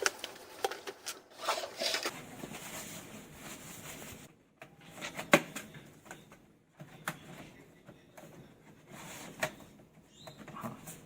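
Hands working on a laptop's plastic case: scattered light clicks and knocks with handling rustle, and one sharper snap about five seconds in.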